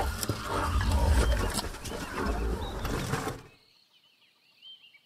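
A rhinoceros making deep, rough huffing sounds that stop about three and a half seconds in, leaving small birds chirping faintly.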